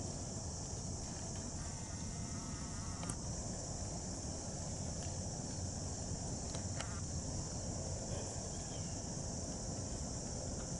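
Steady high-pitched chorus of insects, with a low rumble underneath and a few faint clicks.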